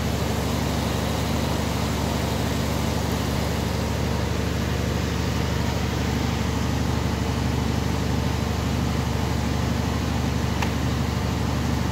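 Air-cooled water chiller running, its compressor and condenser fan giving a steady low hum with a layer of even fan hiss. The compressor is working to pull the water temperature down.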